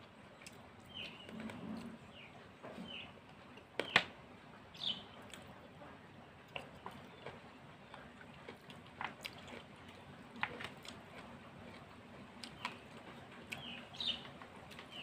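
Eating by hand: chewing, lip smacks and fingers on plates, heard as scattered short clicks, the sharpest about four seconds in. Brief bird chirps sound faintly in the background.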